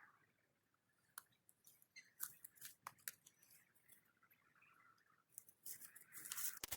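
Near silence with faint, scattered clicks and light rustling; a louder rustle builds near the end.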